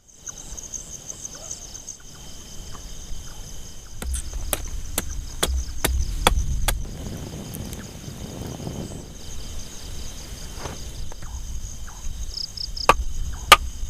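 Night insects trilling steadily in several high, pulsing tones, over a low rumble. Sharp clicks or snaps come several times between about four and seven seconds in, and twice more near the end.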